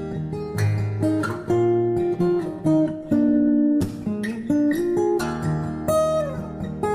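Background music: acoustic guitar playing a run of plucked notes, some of them sliding down in pitch.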